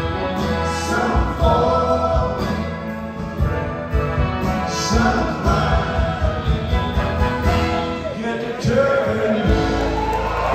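Rock band and symphony orchestra playing live together, with singing over the music.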